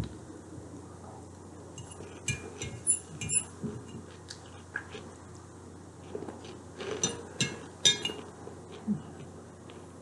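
Eating sounds up close: tableware clinking lightly in two short clusters, about two and seven seconds in, with chewing in between.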